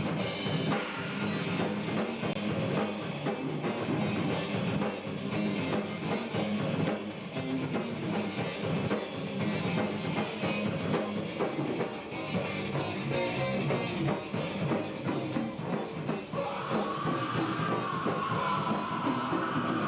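Rock band playing with a full drum kit and guitars, drums hitting steadily throughout. About three-quarters of the way through, a held, wavering high note comes in over the top.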